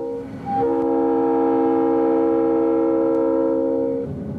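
Diesel freight locomotive's multi-chime air horn at a grade crossing: a short blast at the start, then one long steady chord of several notes held for about three and a half seconds and cut off near the end. Under it, the rumble of the freight train rolling past.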